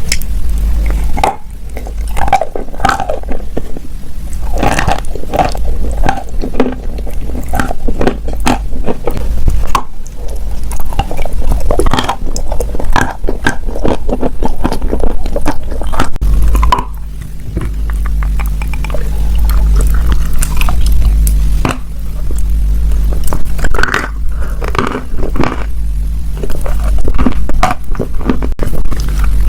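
Crunchy ASMR clay being crushed and broken up close, a dense run of crackles and snaps at irregular spacing over a steady low hum.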